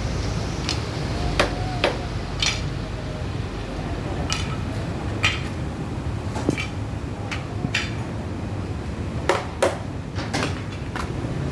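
Irregular sharp metallic clinks and knocks, like tools and metal parts being handled during work on a car-wash machine, over a steady low rumble.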